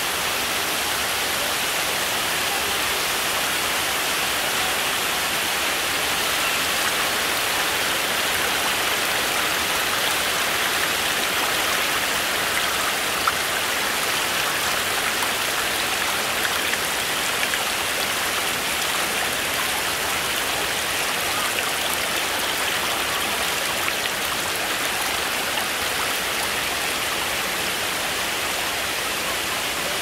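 Waterfall cascade: water pouring over stepped rock terraces into a pool, a steady rushing hiss without breaks.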